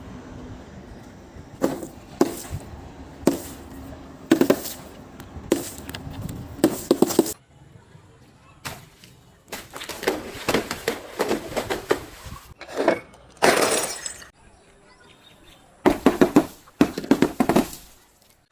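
Objects being crushed and broken: a long, irregular series of sharp cracks and crunches, with two short lulls.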